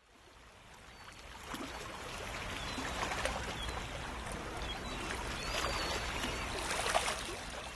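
A background ambience fading in over the first two seconds to a steady rush like flowing water, with a few faint high chirps.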